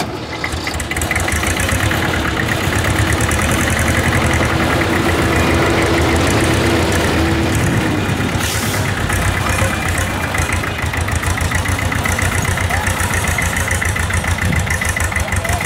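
Yanmar YM2700 small tractor's diesel engine pulling a heavily loaded trailer. The engine builds over the first second or two, then runs loud and steady with a rapid, even beat.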